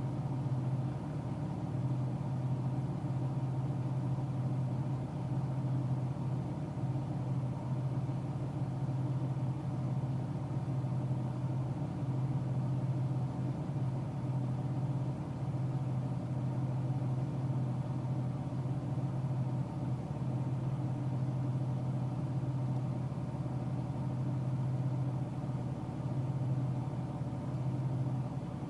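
Car cruising at steady highway speed, heard from inside the cabin: an even low drone of engine and road noise that holds steady throughout.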